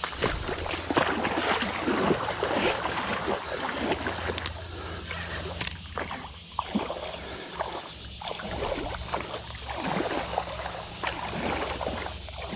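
Water splashing and sloshing in irregular bursts as a hooked catfish thrashes at the surface while being hauled in, over a steady low rumble.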